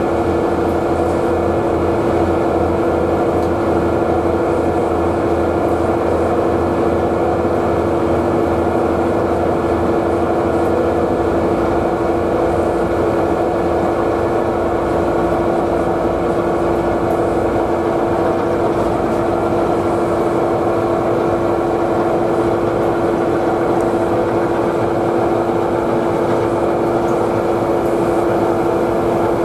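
Diesel engine of a passing coastal sand-carrying ship: a steady low drone with a constant hum. A low, regular engine beat fades out about eleven seconds in.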